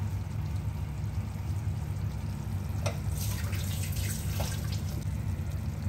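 Pan of dry chicken curry cooking on a gas stove: a steady low hum, with a short run of light crackles and clicks about three seconds in.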